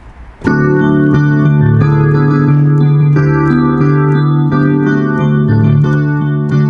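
Electronic keyboard playing slow, sustained organ-like chords over a held bass note, starting abruptly about half a second in.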